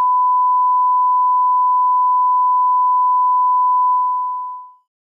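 Steady 1 kHz line-up test tone, the bars-and-tone reference signal, fading out about four seconds in.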